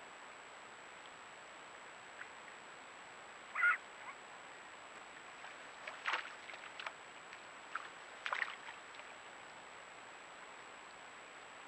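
A few short bird calls over a steady background hiss: one clear call about three and a half seconds in, then a scattered cluster of sharper calls between about six and eight and a half seconds.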